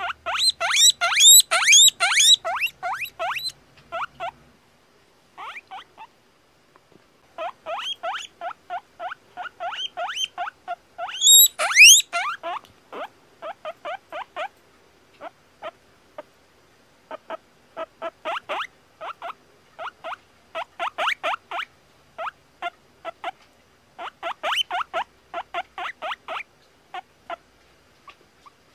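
Domestic guinea pig squeaking in fast runs of short rising squeaks, about five a second, broken by brief pauses. About twelve seconds in comes one louder, longer rising squeal.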